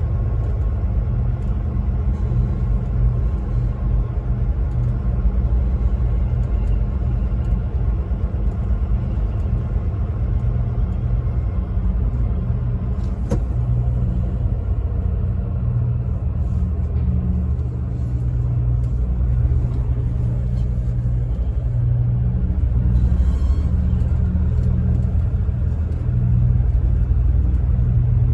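Truck engine running steadily while driving, a continuous low drone with one short click about halfway through.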